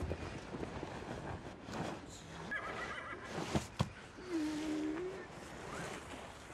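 Faint, quiet ambience with a horse's brief whinny about two and a half seconds in, a couple of soft knocks, and a short low call near the middle.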